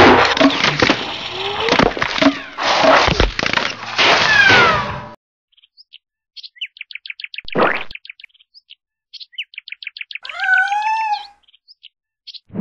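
Dense, loud layered sound effects with sweeping tones and hits, cutting off suddenly about five seconds in. After a short silence, cartoon bird chirps in quick trills, a fast falling swoop, and a longer warbling call with a bending pitch near the end.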